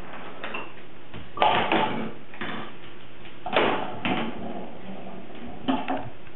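Toys knocking and clattering as a toddler kicks them: three pairs of sudden knocks, about two seconds apart.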